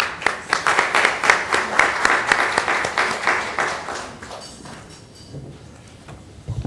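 Audience applauding: many hands clapping, starting at once and dying away over about four to five seconds.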